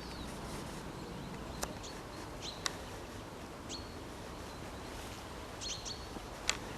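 Outdoor woodland ambience: a steady low background rumble with a few short, high bird chirps scattered through it.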